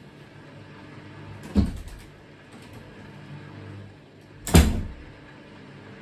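Hoover DynamicNext washing machine draining after its wool wash: a steady drain-pump hum, with two loud thumps about three seconds apart.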